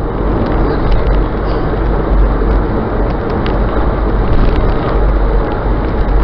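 Steady road noise heard from inside the cabin of a car driving at highway speed, a deep even rumble with a few faint ticks.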